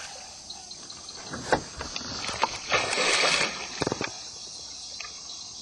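Knocks against a small boat and a short splash of water about three seconds in, over a steady chirping of night insects.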